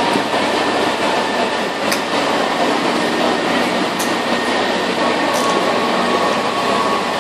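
Ice resurfacer running: a steady mechanical drone with a thin steady whine, a second whine coming in about five seconds in, and a few faint clicks.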